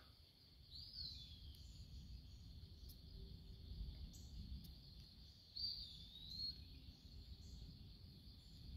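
Faint outdoor quiet with two short bird calls that bend in pitch, one about a second in and another near six seconds, over a faint low rumble.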